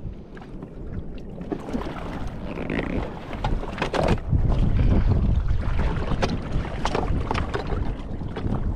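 Wind buffeting the microphone, swelling to gusts partway through, with a scatter of sharp knocks and clicks as the inflatable dinghy and gear are handled against the sailboat's side.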